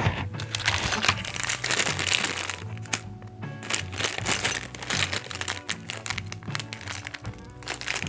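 Clear plastic zip bag of mounting screws crinkling and crackling as it is handled, over background music.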